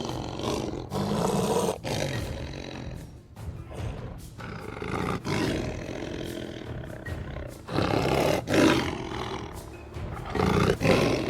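Lion roaring: a series of deep roars and grunts, loudest about eight seconds in and again near the end.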